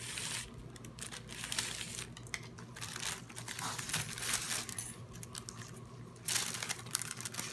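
Crinkly wax-paper wrapping rustling and crinkling as a package is handled, untied and turned over, with a louder stretch of crinkling about six seconds in.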